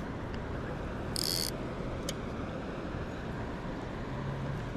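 Steady wind rumble on the microphone at the lakeside, with a brief high-pitched hiss about a second in and a faint tick shortly after.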